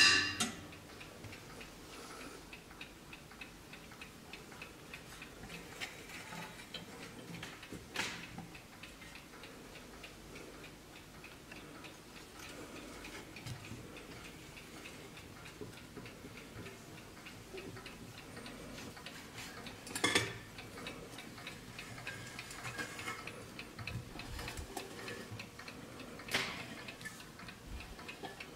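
Antique German mantel clock movement ticking steadily. A few sharp knocks of the brass pieces being handled sound over it, the loudest right at the start, with others about 8, 20 and 26 seconds in.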